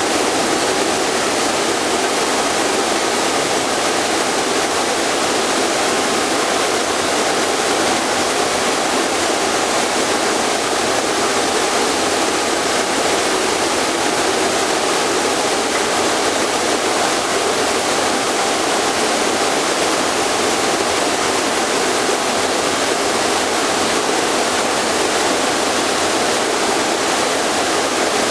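Steady, even rushing hiss with no change, rhythm or pitch.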